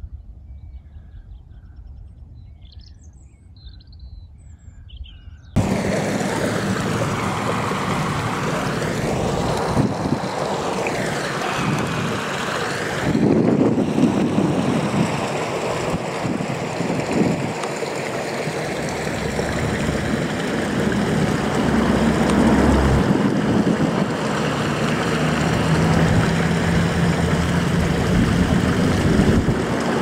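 A few faint bird chirps, then, about five seconds in, a sudden switch to a loud, steady rushing noise with slowly sweeping tones that runs on without a break.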